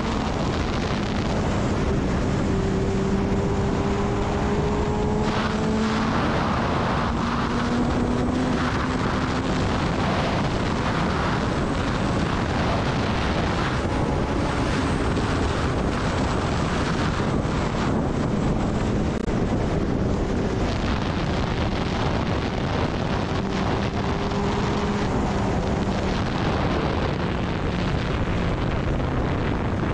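Kawasaki Ninja ZX-10R's inline-four engine running at steady road speed, its pitch drifting slowly up and down, under constant wind rush on the microphone.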